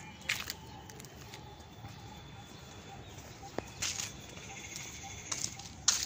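Footsteps through a garden, a few soft rustling steps spaced a second or more apart over a faint steady outdoor background.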